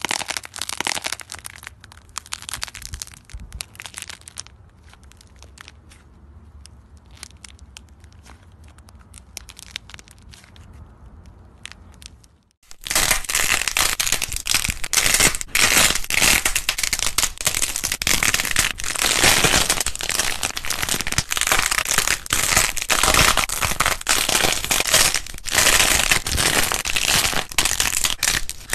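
Hands squeezing and cracking dried, painted modelling clay. For about the first twelve seconds it gives quieter scattered crackles over a low hum. Then a much louder, dense crackling and crunching runs on as the painted clay shell breaks up.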